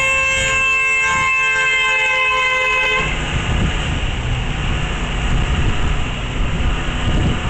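A car horn held down for about three seconds, then cut off suddenly, followed by the rumble of cars driving through the intersection.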